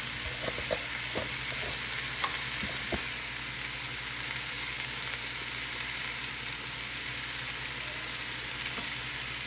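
Cubed squash sizzling steadily in hot oil in a pan, sautéed with garlic and onion. A few light clicks sound in the first few seconds.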